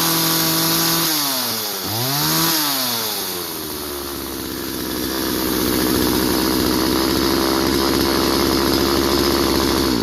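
McCulloch two-stroke chainsaw running after new fuel lines and a carburetor adjustment. It is held at high revs, drops, is blipped up once more, then settles into a steady lower running speed, as a test of whether the carburetor is dialed in.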